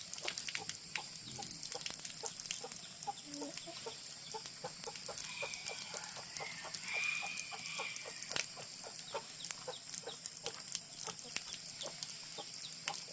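Chickens clucking in a farmyard, with a rooster crowing faintly near the middle.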